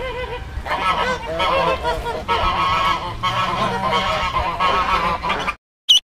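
A group of domestic ducks calling, with many overlapping nasal quacks. Near the end the calling cuts off and a single high duckling peep follows.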